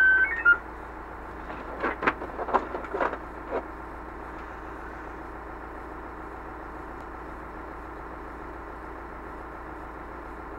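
Fire engine idling steadily, heard from inside the cab. A short radio beep ends the dispatch at the start, and a few sharp clicks come between about one and a half and three and a half seconds in.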